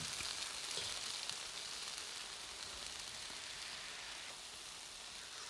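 Tofu and cauliflower stir-fry sizzling in a steel wok over a gas flame: an even, high hiss with a few faint ticks that slowly fades.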